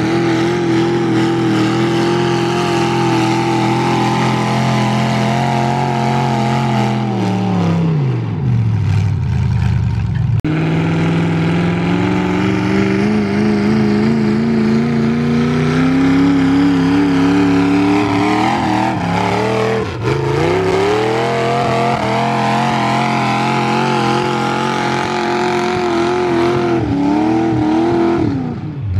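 Modified garden tractor engine at high revs, pulling a weight sled. About eight seconds in its pitch sags and falls as it bogs down under the load. After a sudden break the revs climb steadily again and stay high and wavering until they drop near the end.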